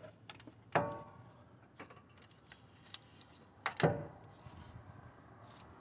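Scattered metal knocks and clinks as a new starter motor is worked up into its mounting hole on the engine. Two louder knocks, about a second in and near four seconds, the first with a short metallic ring.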